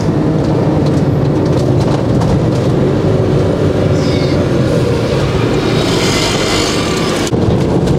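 Motorhome being driven: a steady engine drone with road and tyre noise, heard from inside the cab.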